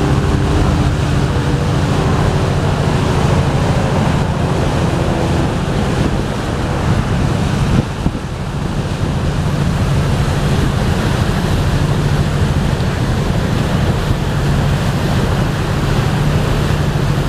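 Wind buffeting the microphone on a ferry's open deck, over the steady low drone of the ferry's engines and the rush of water past the hull. A single brief knock about halfway through.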